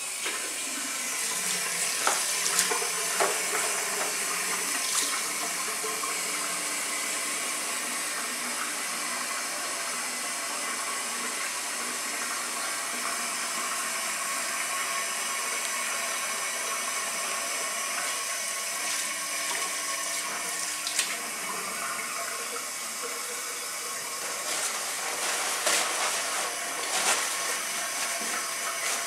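Water from a sink faucet starts running at once and then runs steadily as hands are washed under the stream, with a few short splashes along the way.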